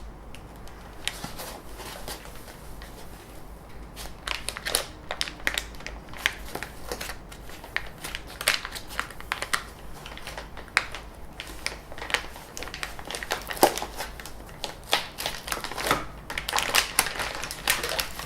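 Packaging being handled while a 3D printer is unboxed: irregular crinkling and rustling with sharp clicks and knocks, sparse at first and busier from about four seconds in.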